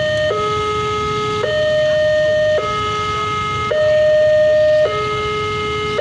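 Railway level-crossing warning siren sounding, an electronic two-tone hi-lo wail that switches between a lower and a higher tone about once a second, the higher tone slightly louder.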